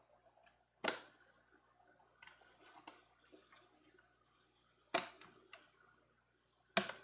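Hand deburring tool paring burrs off the edge of a thermoformed plastic guitar body: three sharp plastic clicks, about a second in, at five seconds and near the end, with faint scraping and small ticks between.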